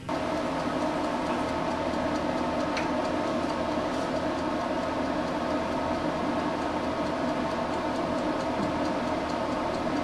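Vintage salon hood hair dryer running: a steady motor-and-fan hum with rushing air.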